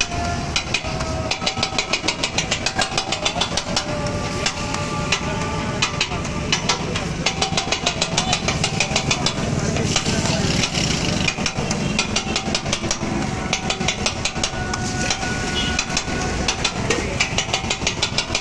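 Metal scraper blade chopping rapidly on a flat iron griddle, cutting chapli kabab and scrambled egg together: a fast clatter of clacks, several a second, with short pauses.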